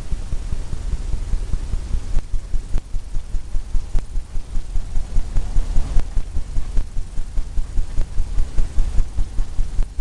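Fan brush tapped repeatedly against a stretched canvas, making a steady run of dull low thumps, about three or four a second.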